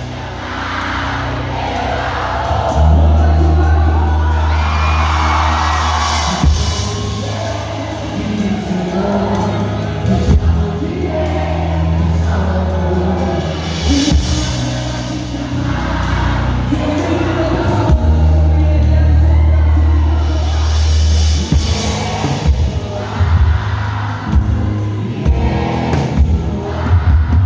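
Live worship band music: a lead voice singing over long held bass notes, with drums.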